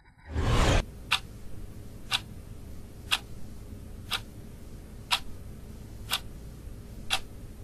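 Countdown sound effect: a short whoosh, then a sharp tick once a second, over a faint steady hum.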